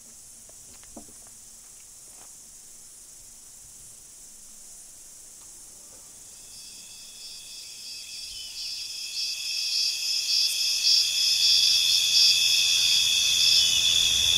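Insect chorus, a high chirring trill with rapid pulses, faint at first and then swelling steadily to loud over the second half.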